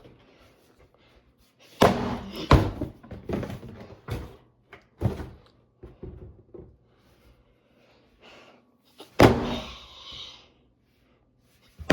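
Thuds and knocks of a box being flipped over and handled: two sharp knocks about two seconds in, a few lighter ones, then a loud thump with rustling about nine seconds in and another knock at the end.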